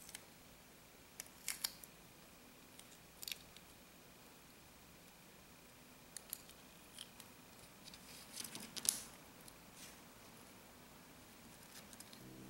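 Faint scattered clicks and small rustles of thin enameled wire being handled and wound around a plastic glue-stick tube, with a denser run of clicks a little past halfway.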